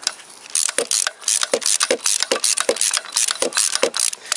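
Socket ratchet wrench clicking in quick back-and-forth strokes, about three a second, starting about half a second in, as it spins out the loosened block-heater bolt on a Toyota VVT-i engine block.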